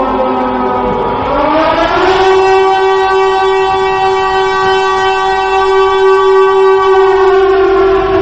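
Civil defense siren wailing: its pitch dips and glides back up in the first two seconds, then holds a steady tone.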